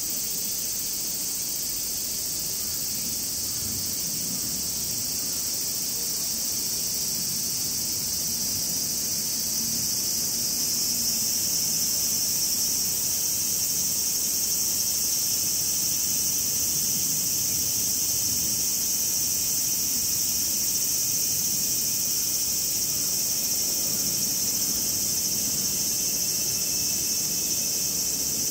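Cicadas calling in a steady, shrill chorus that swells a little about a third of the way in, heard just after rain has stopped.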